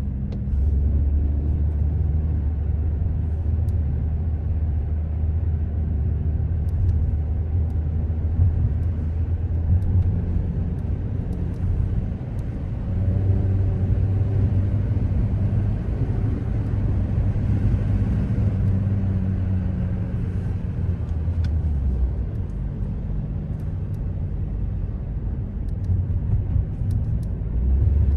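Car driving on city streets: a steady low rumble of engine and road noise, easing off for a while near the end.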